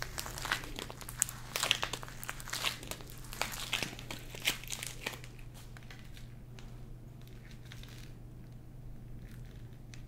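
Rubber-gloved hands twisting and folding a warm mass of pulled sugar dough, with irregular crackling and crinkling. The crackles are dense for about the first half, then thin out to a few faint ticks as the sugar is held still.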